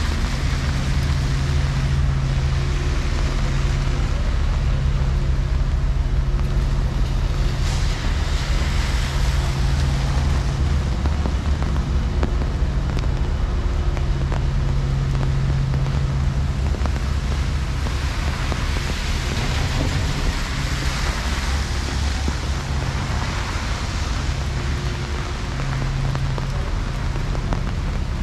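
Steady rain on a city street with the low, continuous hum and rumble of road traffic underneath; an engine hum comes and goes.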